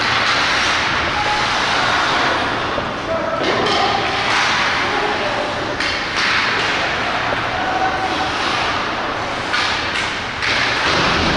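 Ice hockey play in a rink: a steady scrape of skates on the ice, several sharp knocks of sticks and puck, and scattered players' voices.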